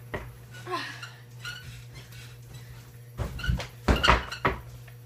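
Someone flipping onto a bed: a cluster of thuds on the mattress with bedsprings creaking and bedding rustling, about three to four and a half seconds in, over a steady low hum.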